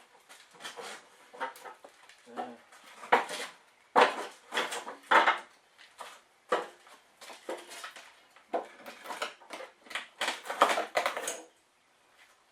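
Irregular metal clanks, knocks and scrapes as the Briggs & Stratton mower and its oil-change gear are handled to tip the warm oil out through the fill hole. The clatter stops shortly before the end.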